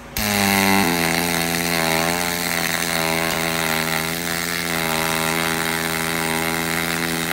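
YesWelder YWM-211P pulse MIG welding arc on aluminum: a steady pitched buzz that starts at once, drops slightly in pitch just under a second in, and stops abruptly at the end of the bead. It is run at 16 volts and 75 amps, which the welder judges not quite enough heat.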